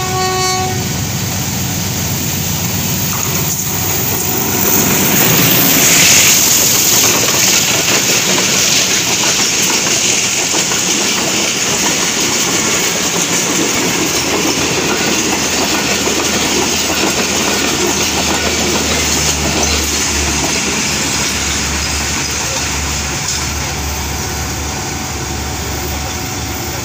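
Diesel-hauled passenger train passing close by: the locomotive goes past a few seconds in, the loudest part, then a long run of coaches rolls by with the wheels clacking over the rail joints. The tail of a horn blast cuts off just after the start, and a low steady rumble grows in the second half.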